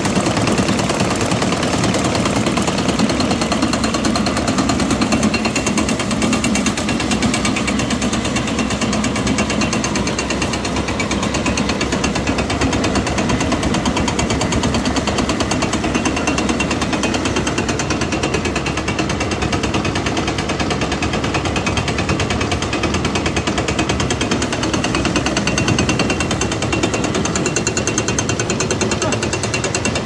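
Meadows grist mill, powered by a Farmall Cub tractor, grinding dried corn into grits: a loud, steady, rapid mechanical rattle from the running mill and its shaking sifter screen.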